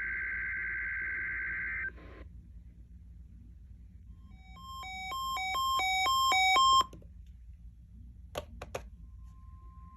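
NOAA Weather Radio test alert tones. A steady warbling burst of SAME digital header tones ends about two seconds in. A run of alternating electronic beeps then grows louder and cuts off sharply, a few clicks follow, and near the end the steady 1050 Hz warning alarm tone begins.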